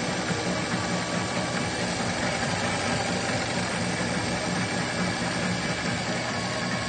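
JUKI industrial sewing machine running steadily at speed, its needle stitching freehand embroidery on a fabric name patch.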